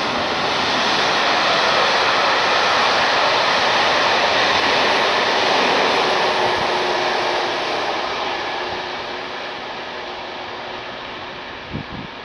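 Train passing close below and running off down the track: a loud, even rush of running noise that fades away over the second half.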